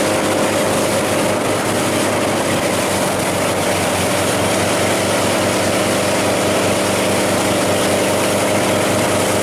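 Motorboat engine running steadily at towing speed, over the rush of the boat's wake.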